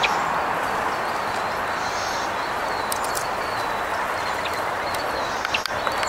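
Steady outdoor background hiss, with a few faint high chirps and a soft click near the end.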